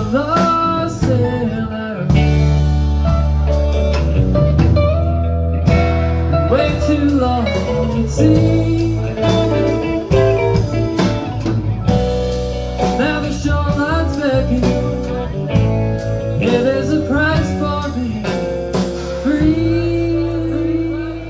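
Live rock band playing: electric guitars, electric bass, keyboards and a drum kit, with a lead line of gliding, bent notes over a heavy bass.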